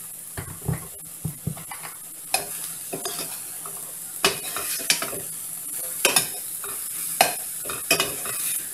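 A spoon stirring pigeon peas, onion and hot peppers frying in oil in a stainless steel pan, scraping and knocking against the pan about once a second over a steady sizzle.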